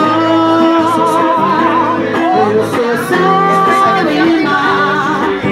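A singer holding long notes with vibrato over instrumental accompaniment, a sung ballad.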